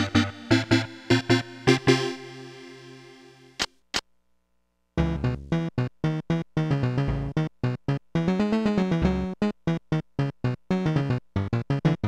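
Casio SA-10 ToneBank keyboard being played: a few ringing notes with sharp attacks that fade away, two short clicks, a moment of silence, then a fast, busy run of short notes over low bass notes starting about five seconds in.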